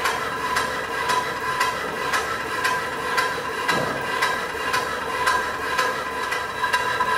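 2-inch scale Fowler K1 steam ploughing engine running, with regular sharp knocks about twice a second from its motion over a steady ringing whine. A brief, lower rush of noise comes about halfway through.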